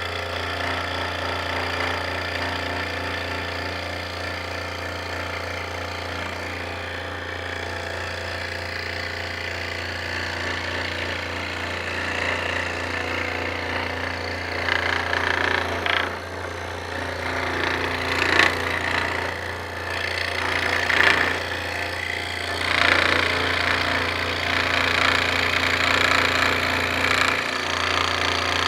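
Scroll saw running with a steady low hum while its blade cuts along a curved line in wood. The cutting noise grows louder and rougher from about halfway through.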